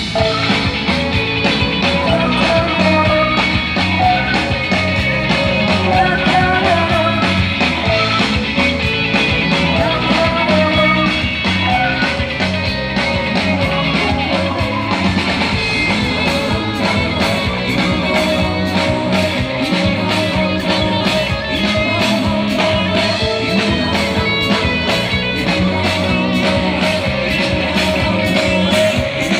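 Live rock band playing an instrumental passage of the song, led by electric guitar over bass and drums. The drumming gets busier with more cymbal about halfway through.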